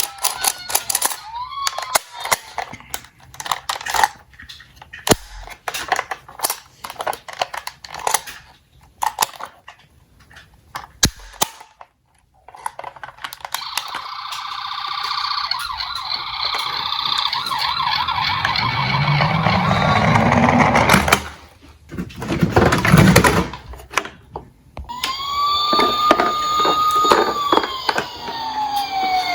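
Diecast toy emergency vehicles clicking and clattering on a toy slope, with a long rushing noise that builds for several seconds and then cuts off. Siren wails sound at the start and again near the end, one held tone that then falls in pitch.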